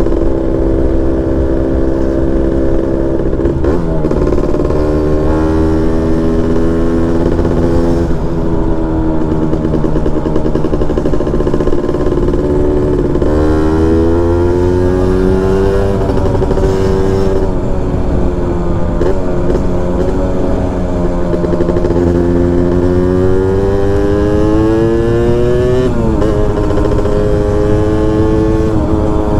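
Honda Nova Dash 125's two-stroke engine through a DBS expansion-chamber exhaust, pulling hard under acceleration. The revs climb steadily and drop back sharply at each gear change, several times over.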